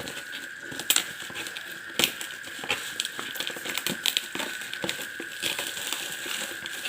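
Plastic packaging crinkling and crackling as a parcel is unwrapped by hand, with scattered clicks and small knocks, over a steady high-pitched whine.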